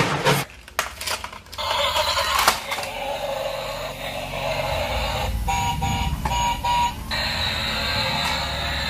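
Battery-powered toy Thomas the Tank Engine driving along a floor, its small motor and wheels whirring steadily. Partway through, a short run of electronic beeps on two alternating pitches sounds.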